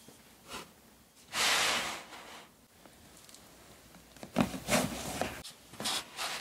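Objects being handled on a bamboo slatted shelf. About a second and a half in there is a brushing slide. Around four and a half seconds comes a quick cluster of light knocks and a thud as books are pushed onto the wooden slats.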